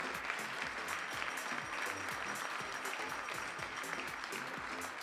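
Audience applauding steadily, with background music playing underneath.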